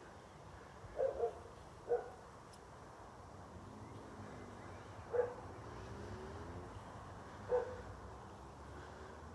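A dog barking in short single barks: two quick barks about a second in, one more just before two seconds, then single barks about five and about seven and a half seconds in.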